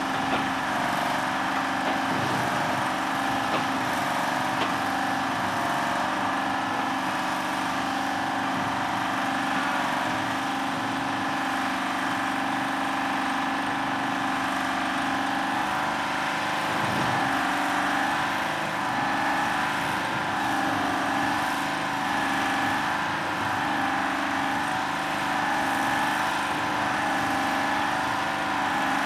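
Engine of a large drilling rig running steadily as it bores a deep seepage pit with a big auger bit, with a wavering whine riding over the engine drone.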